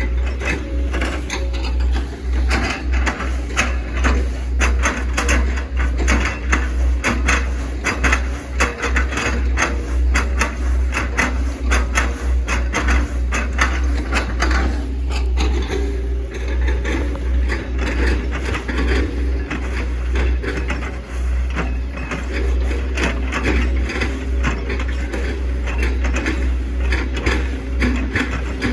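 A Hitachi ZX110 hydraulic excavator's engine runs with a steady low drone, under a dense, irregular run of cracks and knocks from an oil palm trunk being chopped up by the machine.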